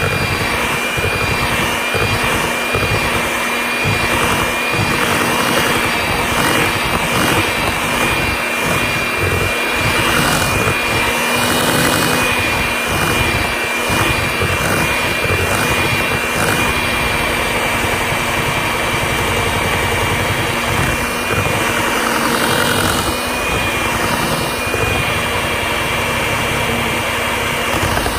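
Electric hand mixer running steadily, its beaters whipping a thick shea butter cream in a stainless steel bowl: a constant motor whine over the churning of the beaters.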